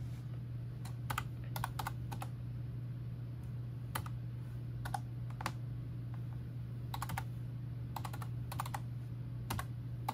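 Typing on a computer keyboard: irregular clicks in short clusters as commands are keyed into a text console, over a steady low hum.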